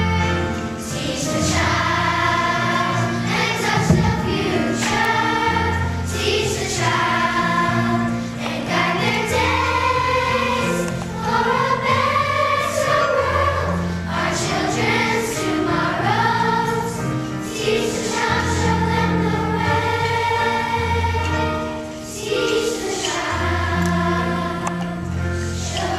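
Children's choir singing a song with musical accompaniment, low bass notes changing every second or two beneath the voices.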